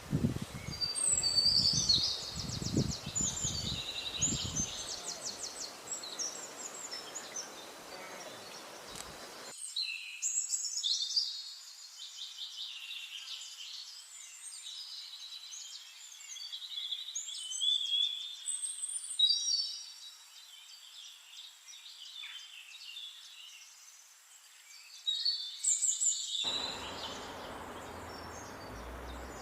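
Several songbirds singing in a forest, with overlapping trills, chirps and fast runs of repeated high notes. Low rumbling is heard in the first few seconds.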